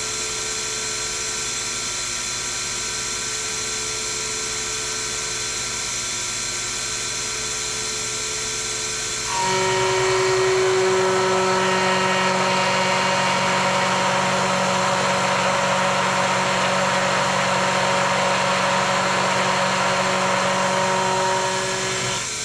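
Sherline mill spindle running steadily with a high whine, a 3/8 inch end mill in the chuck, milling the edge of a brass bar. About nine seconds in it gets louder, with a lower hum, extra whine and more hiss as the slow table feed carries the cutter along the brass. It drops back just before the end.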